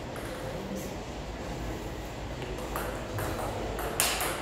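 Table tennis ball clicking off bats and the table as a point is played. After a quiet start with one faint click, the hits begin nearly three seconds in, and the loudest comes about four seconds in.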